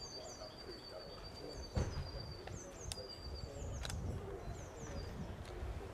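Small birds singing: repeated high, quickly falling notes over a thin steady high whistle, with a low rumble underneath. A single thump comes about two seconds in.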